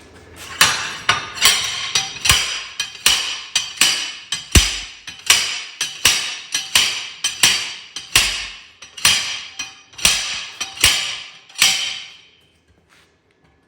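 Homemade slide hammer banging steel on steel in a steady run of about thirty blows, two to three a second, working an axle shaft out of a Ford 9-inch rear axle housing. The blows stop about twelve seconds in.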